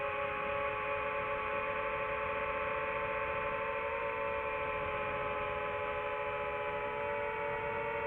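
FPV quadcopter's electric motors whining steadily, a cluster of held tones whose pitch drifts slightly with throttle.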